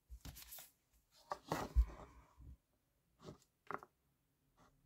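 Hands handling a cardboard box and a paper strip as the strip is pressed onto the box's edge: a few soft, scattered rustles and taps, the loudest a small thump just under two seconds in.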